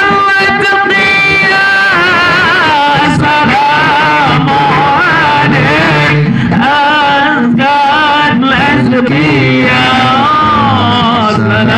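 A male voice singing a melismatic Arabic sholawat (devotional praise song) into a microphone through a PA, in long wavering phrases, with drum accompaniment.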